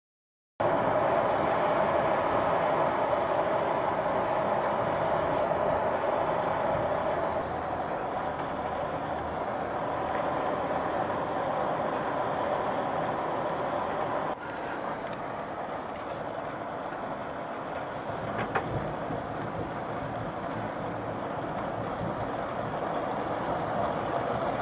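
Heavy rain pouring down in a steady rush. The downpour drops in level about halfway through and keeps falling more quietly.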